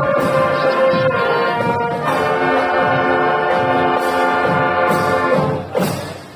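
Multi-tone musical air horn (telolet horn) of a Mercedes-Benz bus, sounding loud held chords that change pitch about two seconds in and cut off near the end.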